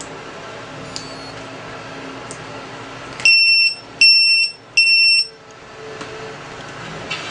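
RC 3-in-1 battery monitor alarm buzzer sounding three loud, high-pitched beeps of about half a second each: its low-voltage alarm, set off because the battery's cells are below the 3.7 V minimum set on it.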